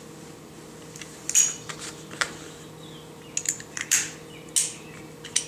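Scattered sharp metallic clinks and clatters of hand tools, a ratchet, socket and bolt being handled and set down, over a faint steady hum.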